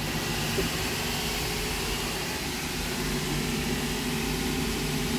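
Steady hum of workshop machinery running: a constant low drone with a few faint steady tones, unchanging throughout.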